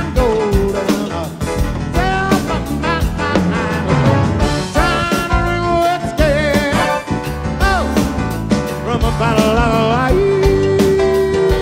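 Live band music: an up-tempo, piano-led song with a steady drum beat and wavering melodic lines on top, heard as the musicians' in-ear monitor mix with very little crowd noise.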